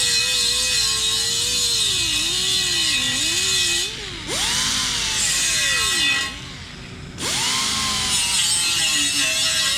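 Small high-speed rotary grinder working an aluminum wheel rim, grinding TIG weld fill back down. Its motor pitch sags and wavers with the load, and the tool is let off briefly twice, spinning back up each time.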